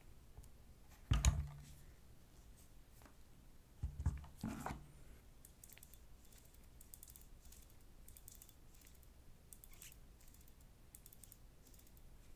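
Small objects being handled on a table during a smartwatch unboxing: two soft knocks, the first about a second in and the second about four seconds in, then several runs of faint, quick, light clicks.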